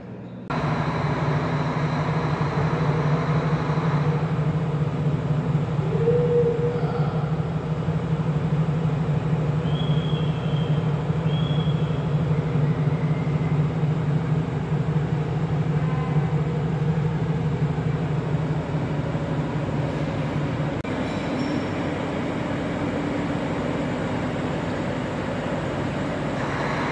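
A steady low mechanical hum under a noisy rumble, starting abruptly; the hum drops out about 21 seconds in, leaving a lighter steady rumble.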